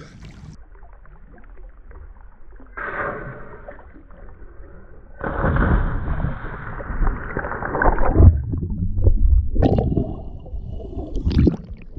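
Muffled water gurgling and sloshing. It swells into a louder, muffled rush of water for about three seconds from about five seconds in, then gives way to a few short knocks near the end.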